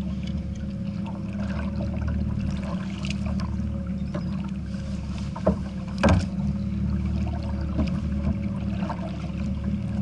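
Water lapping against a plastic kayak hull, with small clicks and knocks of fishing tackle being handled; a sharp knock about five and a half seconds in and a louder one about six seconds in.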